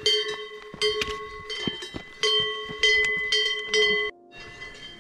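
Cowbells on grazing alpine cattle clanking in irregular strokes, each clank ringing on. The clanking cuts off suddenly about four seconds in.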